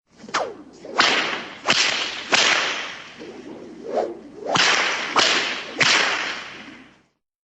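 Cartoon whip sound effects: a series of about seven sharp whip cracks, roughly one every half second to second, some led in by a sweeping swish, each trailing off before the next.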